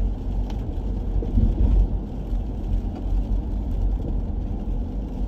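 Low, steady rumble inside a running car's cabin.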